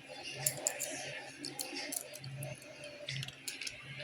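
Scattered light clicks and taps of a chainsaw's metal and plastic parts being handled by hand during repair, over a steady low hum.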